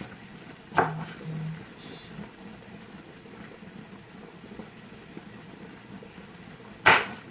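Kitchen food-prep handling: two sharp knocks, about a second in and near the end, over a faint steady hiss.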